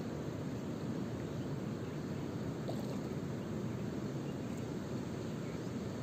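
Steady low outdoor rushing noise, even throughout, with no distinct event standing out.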